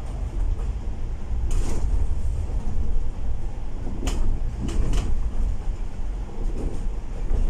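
Volvo B8L double-decker bus driving, heard from inside the upper deck: a steady low rumble of engine and road. Several short rattles and knocks from the bus body come about a second and a half in and again around four to five seconds in.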